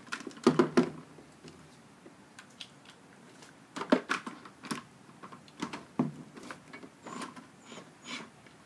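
Irregular clicks and knocks of hard plastic as the Hayward Navigator pool cleaner's body and pods are handled on a table, with a quick cluster of knocks in the first second and scattered single clicks later.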